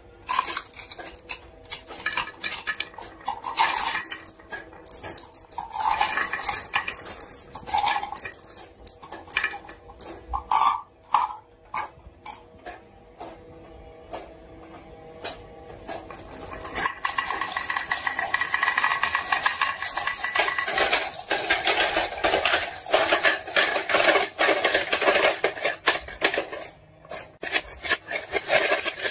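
Marbles clicking and clattering down a toy marble run, in separate knocks at first. About halfway through they turn into a dense, continuous rolling rattle.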